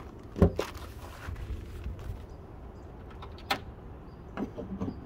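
Car hood being unlatched and lifted by hand: a sharp knock about half a second in, a click about three and a half seconds in, and a few softer knocks near the end.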